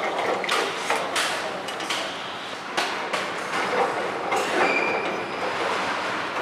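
Irregular knocks and clanks over a steady background hiss, the clatter of a factory workshop floor.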